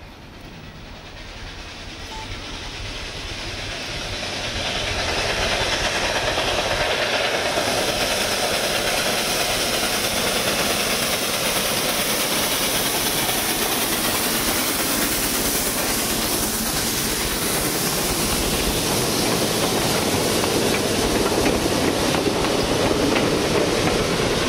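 Robert Dollar #3, a 2-6-2 steam tank locomotive, and its passenger coach running past on the track. The sound builds over the first five seconds as the train approaches, then holds loud and steady as it goes by.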